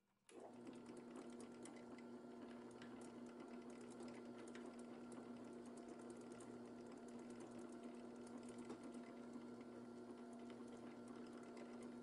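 Drill press running, its long bit boring down into a thick block of wood: a steady motor hum with the bit's fine rattling cut over it, starting abruptly just after the start.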